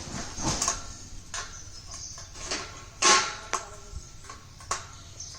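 Irregular clicks and knocks of plastic poultry feeder-pan parts being handled and fitted together, about eight in all, the loudest about three seconds in.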